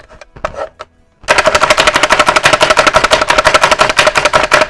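Small garlic chopper chopping garlic cloves: after a few light clicks, a loud, fast, even rattle starts a little over a second in and runs for about four seconds before cutting off suddenly.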